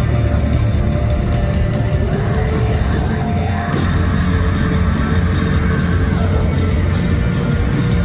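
Rock band playing live: loud, heavy music with a dense, sustained low end and a steady beat of evenly repeating strikes.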